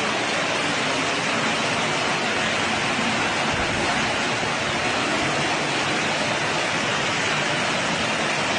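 Torrential rain pouring down in a steady, loud hiss.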